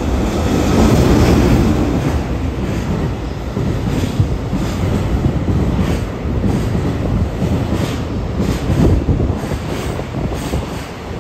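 A JR Freight EH500 electric locomotive hauling a container freight train through a station at speed. The locomotive goes by about a second in, then a long string of container wagons rumbles past with a steady clatter of wheels over the rail joints.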